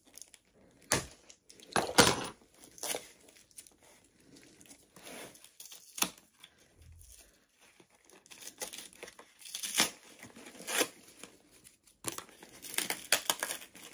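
Parcel packaging being torn open and crinkled by hand, in short separate rips and rustles, with a quicker run of them near the end.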